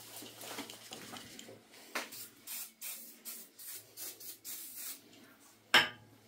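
Aerosol spray can hissing in a series of short bursts as it is sprayed onto the steel tailstock quill of a lathe. A sharp knock near the end, as the can is set down on the metal lathe bed.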